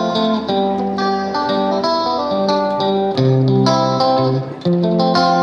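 Background music: a melody of quick plucked notes over lower held bass notes.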